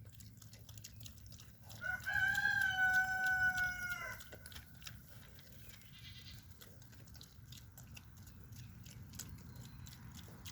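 A farm animal eating noisily, with repeated short clicks of chewing throughout. About two seconds in it gives one loud, steady, high-pitched call that lasts about two seconds and bends in pitch as it stops.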